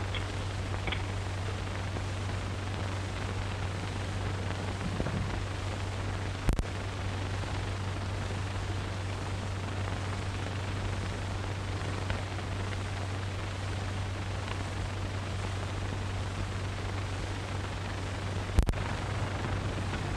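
Steady hiss and low hum of an old optical film soundtrack, with no dialogue or music. Two sharp pops, typical of a worn print, come about a third of the way in and again near the end.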